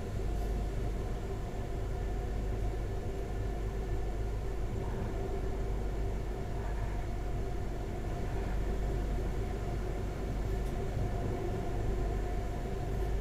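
Pesa 218Mc diesel railcar heard from inside the passenger cabin while moving: a steady low rumble of wheels on track, with the steady hum of the diesel drive underneath.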